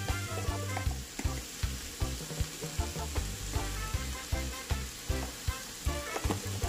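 Wooden spatula stirring shredded cabbage and shrimp in a hot cast iron skillet: about two to three scrapes and taps against the pan a second over a steady sizzle.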